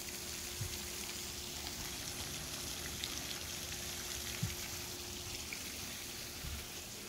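Pond fountain spray falling back onto the water: a steady soft hiss of splashing water, with a faint steady hum under it that stops about five seconds in.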